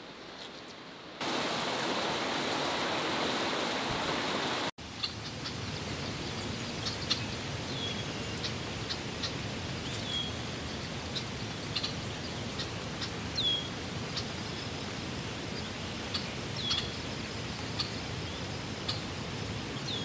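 Steady rush of flowing river water, louder for a few seconds near the start. After a brief cut-out a bird calls over it every two or three seconds with short chirps.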